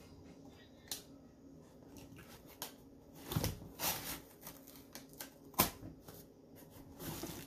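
A small blade cutting along the packing tape on a cardboard shipping box: irregular scratches, scrapes and clicks of the blade on tape and cardboard, with a burst of scraping a little before the middle and one sharp click past it.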